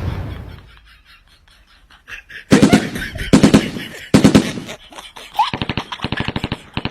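A loud bang dies away over the first second. After a short lull come loud sharp bangs in quick bursts, then a fast, even rattle of cracks, like automatic gunfire.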